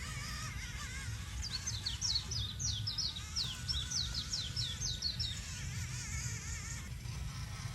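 A bird singing a rapid run of short, falling high notes for about four seconds, over a steady low rumble.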